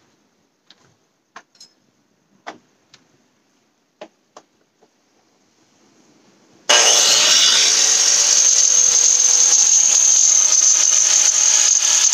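A few light clicks and knocks, then a little past halfway a power tool starts suddenly and runs steadily and loudly, abrading the fiberglass and kevlar of a sailboat's hull with carbide.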